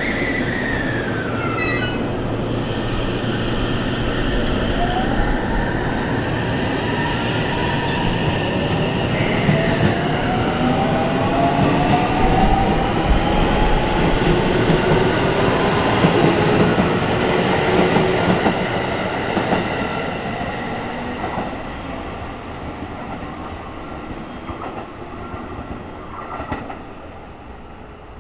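JR Central 313 series electric train accelerating away, its Toshiba VVVF inverter whine climbing in pitch in several stepped tones over the rumble and clatter of the wheels. The sound grows to its loudest about halfway through, then fades as the train pulls away.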